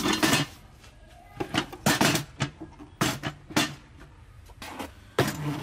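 An old Sharp electric rice cooker being handled on concrete: a string of irregular knocks, clatters and scrapes as its body is set down and its lid handle gripped.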